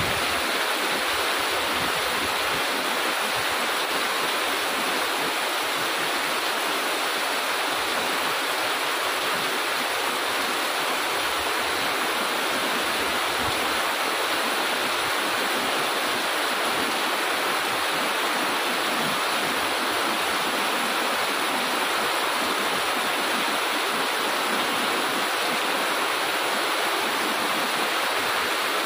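Heavy tropical rain pouring down steadily, a dense even hiss of downpour with no breaks.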